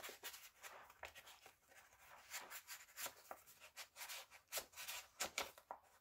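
Faint paper rustling and scraping as a paper tag is slid out of and back into a craft-paper pocket in a handmade journal: a string of short, irregular brushing and crinkling sounds.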